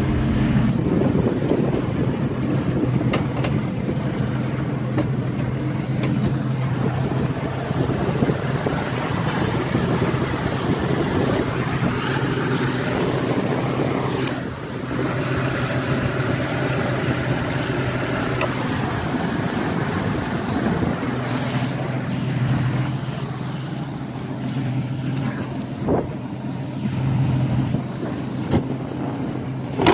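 Yamaha 150 hp OX66 two-stroke outboard running steadily, with wind and water noise over it.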